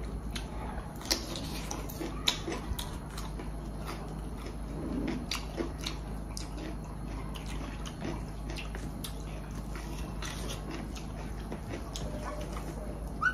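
Mouth sounds of eating: chewing and wet lip-smacks, with many scattered short, sharp clicks.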